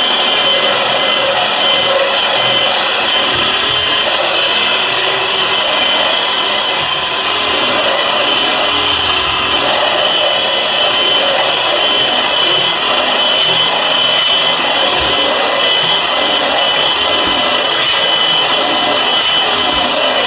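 Electric belt sander running steadily with a constant whine, its belt grinding against the wood of a chair.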